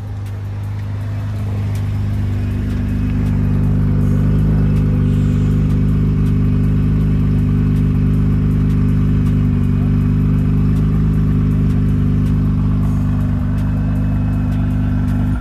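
Nissan GT-R's twin-turbo V6 running at a steady, held engine speed close to its exhaust, loud. It swells over the first few seconds, then holds at one pitch until it stops abruptly at the end.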